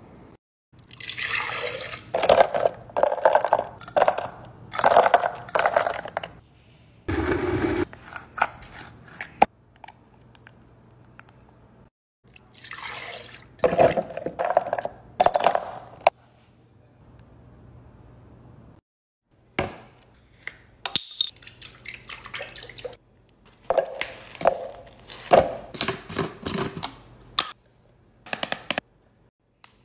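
Smoothie ingredients going into a plastic blender jar: a series of short pours, clatters and splashes, with coconut milk poured in and splashing about halfway through.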